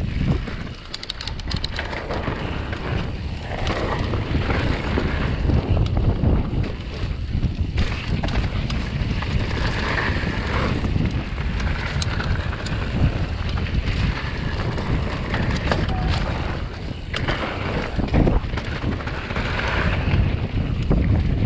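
Wind buffeting a chest-mounted action camera's microphone as a mountain bike rolls along a dirt and gravel singletrack, with tyre crunch and bike rattle underneath. Occasional sharp clicks come from the bike.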